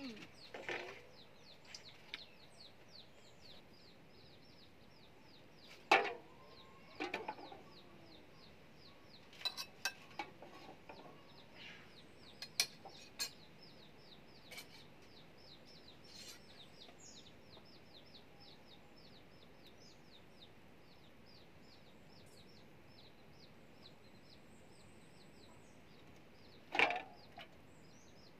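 Free-range chickens clucking a few times, loudest about six seconds in, again a second later and near the end, over an even run of short, high, quick chirps repeating several times a second. A few light clicks come in between.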